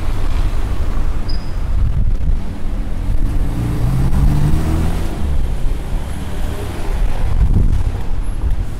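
Street traffic with wind buffeting the microphone; a vehicle engine passes close by around the middle, its note rising slightly.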